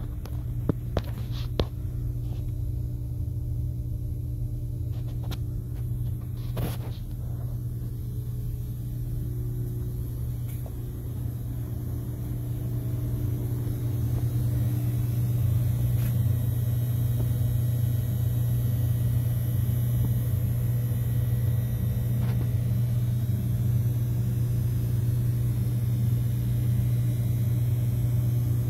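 Ship's engine-room diesel machinery running: a loud, steady low drone, with a few sharp knocks in the first seven seconds. It grows louder about halfway through.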